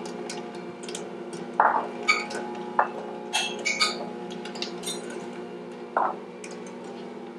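A glass vanilla extract bottle and a metal measuring spoon clinking as vanilla is measured out, with a few separate clinks and knocks; a knock about six seconds in as the bottle is set down on the counter. A steady hum runs underneath.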